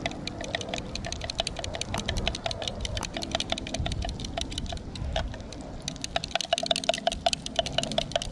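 A fork whisking eggs in a glass cup, its tines clicking against the glass in a fast, steady rhythm that gets louder and quicker near the end.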